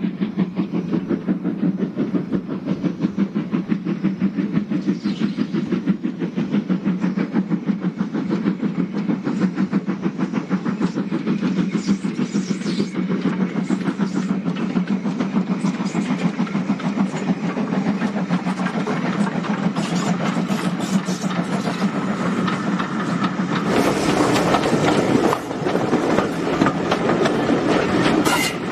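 BR Ivatt Class 2MT 2-6-2T steam locomotive working a passenger train under steam, its two-cylinder exhaust beating in a fast, even rhythm. About 24 seconds in, the sound gives way to the louder rush and clatter of the coaches' wheels passing close by.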